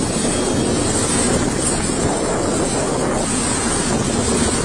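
Steady rushing roar of a large jet cargo aircraft running on the ground, with a high hiss on top.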